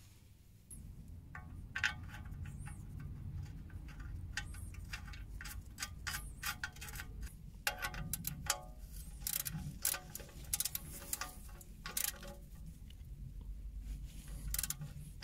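Ratchet wrench clicking in irregular runs of sharp metallic ticks as a bolt is turned, over a low steady rumble.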